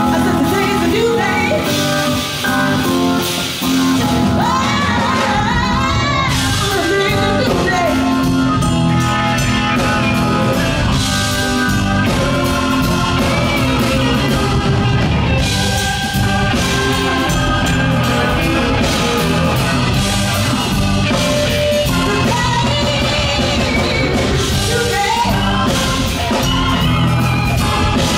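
Live rock band playing: electric guitar and drum kit, with a woman singing over the music.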